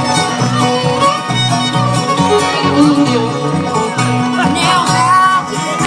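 Bluegrass string band playing live, a steady low beat under melody lines that slide up and down.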